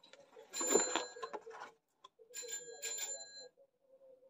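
A bell-like chime rings three times, each ring a cluster of high steady tones that hold for about a second before stopping.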